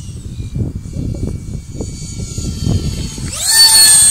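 RC jet's engine whining, faint at first and falling slightly in pitch. About three seconds in it rises sharply in pitch and loudness, as when the throttle is opened, and then holds a steady high whine.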